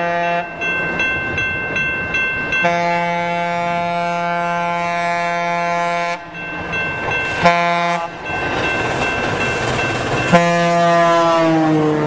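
Train horn sounding a chord in several blasts over the rumble of a moving train: a short blast, a quick run of short toots, a long blast of several seconds, another short blast, then a final blast that falls in pitch near the end.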